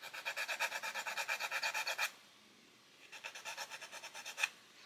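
Small hand file rasping on a plastic model-kit part in quick back-and-forth strokes. There is a short pause about two seconds in, then a second, fainter run of strokes.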